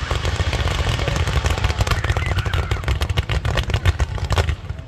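Fireworks barrage: many shells bursting in quick succession, a dense run of cracks and bangs over a deep rumble, thinning out near the end.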